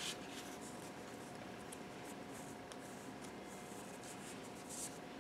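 Faint rubbing and light scratching as a cleaving jaw is pushed by hand along the slot of a pair of cleaving pliers, the most noticeable scrape near the end.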